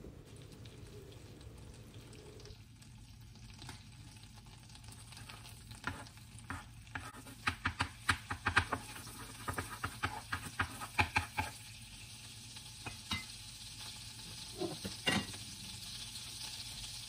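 Butter melting and sizzling faintly in a hot pan, with a run of sharp clicks and scrapes from a utensil against the pan in the middle of the stretch.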